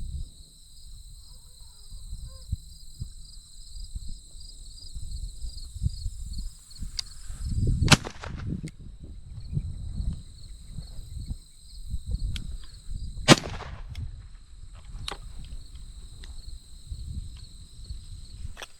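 Two 28 gauge shotgun shots about five seconds apart, each a sharp crack with a short tail of echo; the second is fired through the full-choke barrel. A steady, pulsing buzz of insects runs underneath.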